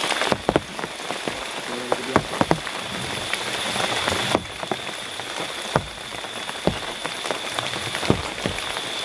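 Heavy rain falling steadily, with big drops striking close by at irregular moments. A steady high thin tone runs underneath.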